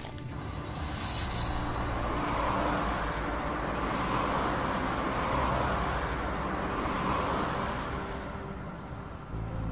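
Engine and road noise of a truck convoy driving past, swelling about two seconds in and fading away near the end.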